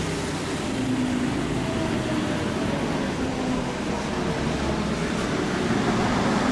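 Engine of a vintage double-decker bus running steadily at close range, a low, even rumble, with general street traffic behind it.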